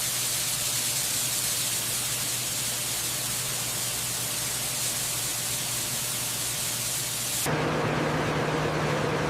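Electrolysis bath fizzing with a steady, even hiss as it strips rust from steel tank parts. About seven and a half seconds in, it cuts sharply to a lower, steady machine hum with a couple of held tones.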